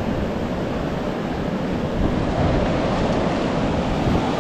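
Ocean surf breaking and washing up a sandy beach, with wind buffeting the microphone: a steady rush of noise that swells a little about halfway through.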